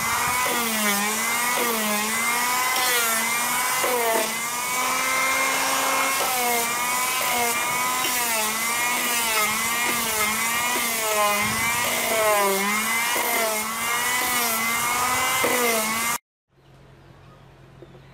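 Homemade vibrating hand sander, a 775 DC motor in a PVC pipe housing, running while sanding a wooden board. Its whine dips and recovers in pitch about once a second, holding steadier for a couple of seconds about four seconds in. The sound cuts off suddenly about 16 seconds in.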